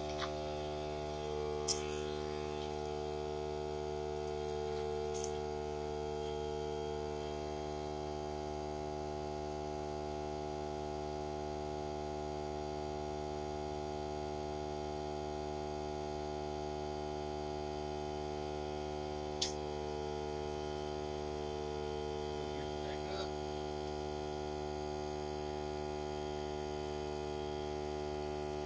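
Hart 20V cordless 2-gallon air compressor motor running with a steady, even hum while it refills its tank, its battery nearly drained. A few faint clicks sound over it.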